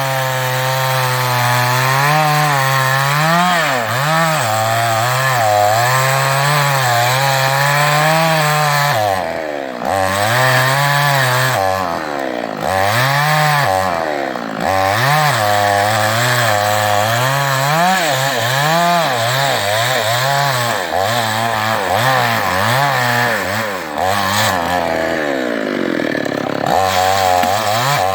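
A New West 588 chainsaw (a Chinese two-stroke) cutting teak wood. The engine pitch keeps rising and falling under load, and the engine speed dips briefly a few times.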